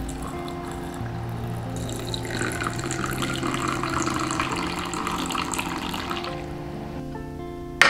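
Water poured in a thin stream into a glass teapot's infuser full of dried flower petals, splashing steadily for about four seconds from a second or two in, then a single sharp glass clink near the end.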